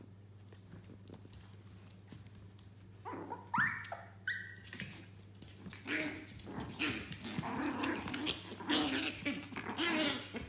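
Yorkshire terrier puppies play-fighting: a few short rising yips about three seconds in, then several seconds of busy puppy barking and yapping.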